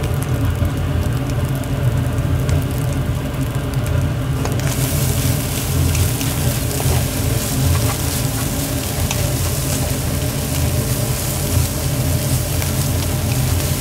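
Mie goreng noodles sizzling as they are stir-fried in a hot wok, over a steady low rumble, with occasional light taps. The sizzle turns louder and brighter about five seconds in.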